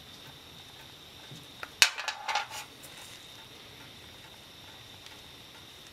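A brief clatter of metallic clinks about two seconds in, the first the loudest, each with a short ring: small metal parts knocking against the steel drip tray under the master cylinder.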